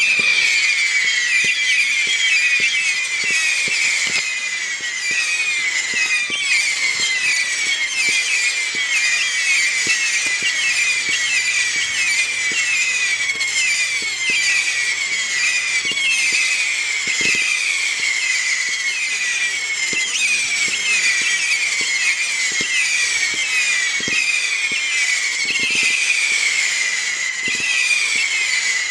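R7071 'Fire Storm' 300-shot, 0.6-inch whistle firework battery firing in a rapid, unbroken stream: shrill overlapping whistles several times a second, with light pops of the shots launching underneath.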